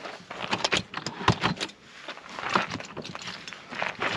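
Rooftop-tent ladder being handled and set against the car: an irregular run of metallic clicks, clacks and rattles.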